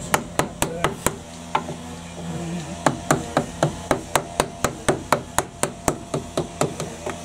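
Wooden mallet striking the handle of a wood chisel to cut a notch in old, gnarly timber. A quick few blows, a short pause, then a steady run of about four blows a second.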